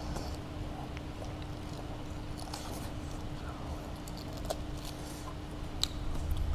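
People chewing food quietly, with a few light clicks now and then, over a steady low hum.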